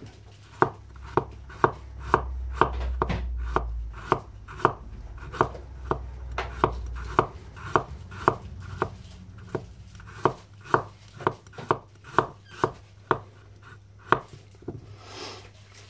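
ROOT 2.0 bushcraft knife slicing a carrot into thin rounds on a bamboo cutting board: a steady run of knife taps on the board, about two a second, stopping near the end.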